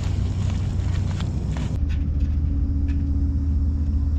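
Eggs and green peppers being stir-fried in a pan: a few spatula scrapes and taps in the first two seconds over a steady low rumble, with a steady low hum joining about two seconds in.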